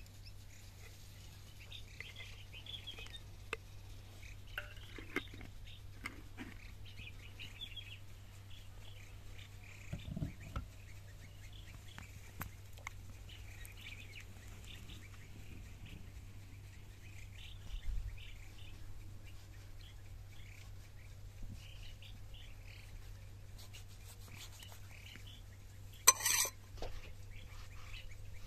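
Small birds chirping on and off in the background over a faint steady hum, with one brief sharp clatter near the end.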